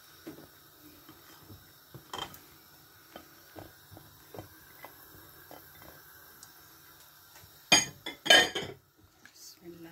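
Kitchen cookware and utensils clinking and knocking: light scattered ticks, a sharper knock about two seconds in, and two loud clatters near the end.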